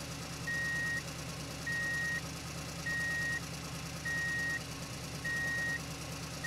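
Truck reversing alarm beeping, one steady beep about every 1.2 seconds, over a steady idling engine.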